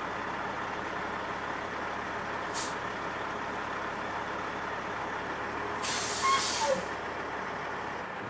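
Diesel engine of an Oshkosh 8x8 military truck running steadily. There is a short hiss of air about two and a half seconds in, and a louder, longer hiss of compressed air around six seconds in, typical of the air brakes.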